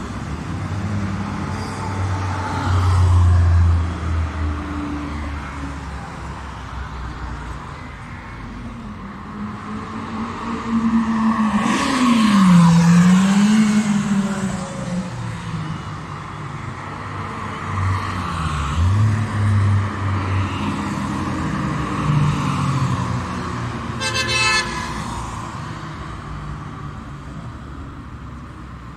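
Cars driving past one after another on a race circuit straight, their engines rising and falling in pitch as each goes by, the loudest passing about halfway through. A short car horn toot sounds later.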